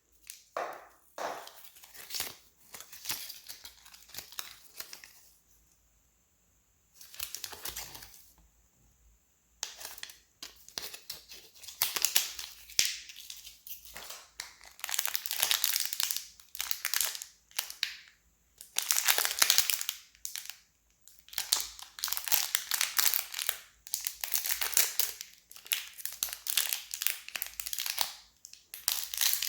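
Wrapper packaging being unwrapped by hand: repeated crinkling and tearing in irregular bursts with short pauses between them.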